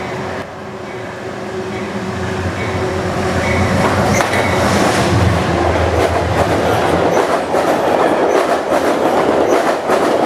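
Express passenger train led by a P32AC-DM diesel locomotive passing through at track speed. The engine's low hum grows louder over the first few seconds, then the coaches' wheels set up a rapid clickety-clack as the cars rush past.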